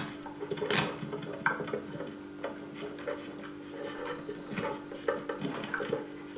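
Handling noise from a homemade electric guitar being lifted and settled onto the lap, heard as scattered clicks and knocks over a steady amplifier hum.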